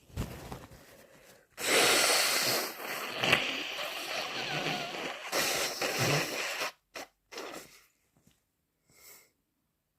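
A person with a cold sneezing and blowing a snotty nose. A loud, noisy stretch of several seconds begins about a second and a half in, with a sharp peak in the middle, and a few short, faint sounds follow near the end.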